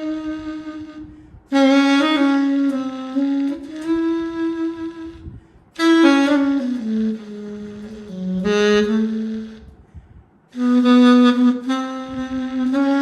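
Sampled saxophone (VHorns virtual instrument) played from an EWI wind controller: a single melodic line in three phrases with short breaks between them, the notes sliding and stepping in the mid-low register.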